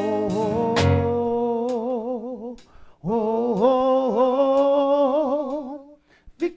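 A gospel singer holds long, wordless notes with heavy, wavering vibrato in two phrases, with a short breath between them. The drums and keyboard stop with a last drum-and-cymbal hit about a second in, leaving the voice almost unaccompanied.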